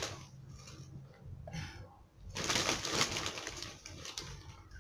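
Plastic bag of potting soil rustling and crinkling as hands scoop soil from it, in short bouts, the loudest a little past halfway.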